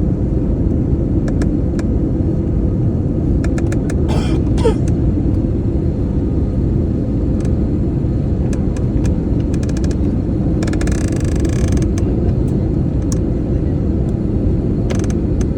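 Airliner cabin noise during descent: a loud, steady low rumble of the engines and airflow with a faint steady hum. Scattered creaks and clicks come from the cabin, with a brief hiss about eleven seconds in.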